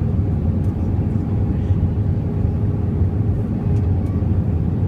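Steady low rumble inside the cabin of an Airbus A320 in flight, engine and airflow noise heard from a window seat over the wing as the jet descends to land, with a faint steady hum above the rumble.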